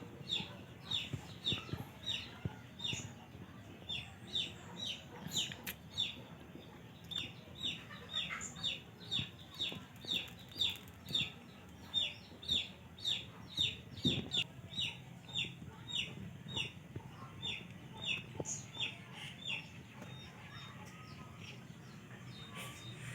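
Chicks peeping steadily: a long run of short, high, falling peeps, about two to three a second.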